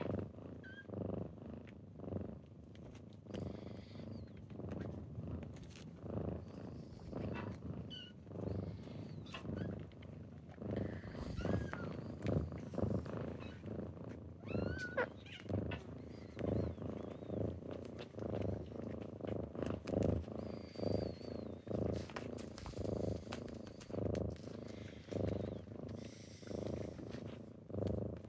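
Kitten purring close up, swelling and fading with each breath in a steady rhythm, with a few faint high squeaks around the middle.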